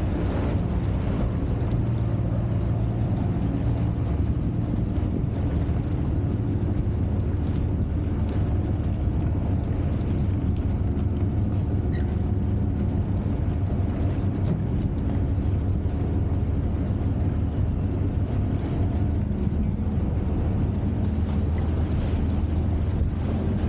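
Motorboat engine running steadily at cruising speed, a low hum under the rush of churned water alongside the hull, with wind on the microphone.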